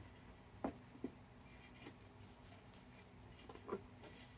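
Faint rubbing and scraping with a few light knocks as a rubber wheelbarrow tire is worked by hand onto its rim.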